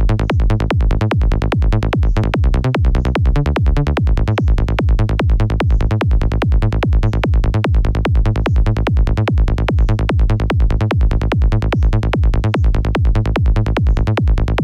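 Electronic dance-music kick-and-bass loop playing: a kick drum and synth bass in a fast, evenly repeating pulse with heavy low end.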